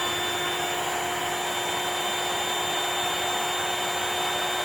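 Electric inflatable-mattress air pump running steadily, a motor whine over rushing air, blowing air up the pipes into a homemade charcoal furnace to heat the coal.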